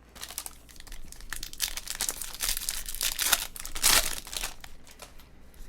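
Trading-card pack wrappers crinkling as they are handled, a dense run of quick crackles that is loudest about four seconds in.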